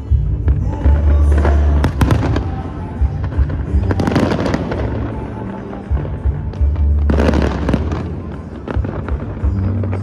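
Fireworks bursting and crackling over loud, bass-heavy music, with the heaviest crackle about a second in, around four seconds in and around seven seconds in.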